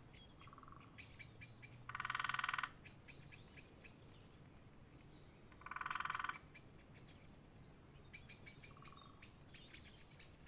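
Forest ambience: a frog calling in short trills of rapid pulses, twice, about four seconds apart, with faint high bird chirps in between.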